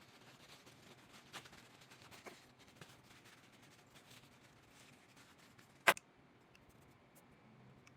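Faint handling sounds of a hair clipper being cleaned: light scratches and small clicks, the clipper not running, with one sharp click about six seconds in.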